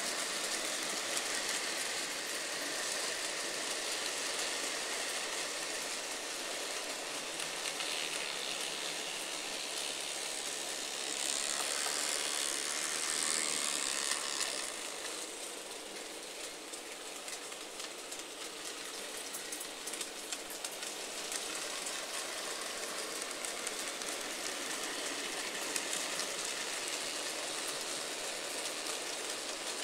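N gauge model trains running on the layout's track: a steady rolling rattle of small wheels and motors, with light clicks. It grows louder for a few seconds from about eleven seconds in as a train passes close.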